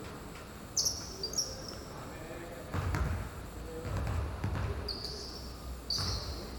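Basketball bouncing on a court, with a few short, high sneaker squeaks and players' voices in the background.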